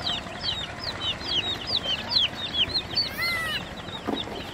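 A group of baby chicks peeping continuously: many short, high, falling peeps overlapping, several a second, with one lower, longer call about three seconds in.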